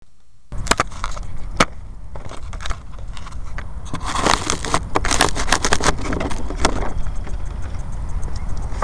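Handling noise picked up by a small onboard camera on an RC model plane: irregular clicks, knocks and rubbing over a steady low rumble that starts about half a second in.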